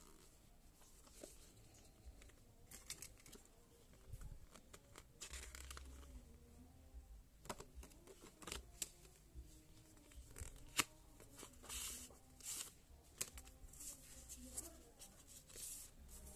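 Faint rustling and crinkling of paper and plastic packaging being handled, with short scattered rips and a few sharp clicks, busier in the second half.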